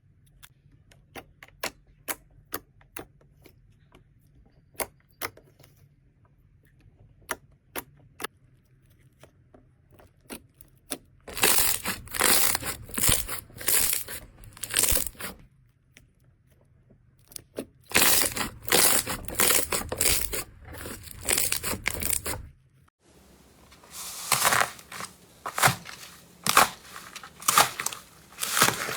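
Slime being squeezed and stretched by hand: first scattered sharp clicking pops, then longer stretches of crunchy crackling and popping. The sound cuts off abruptly near the end, and the crackling and popping then start again.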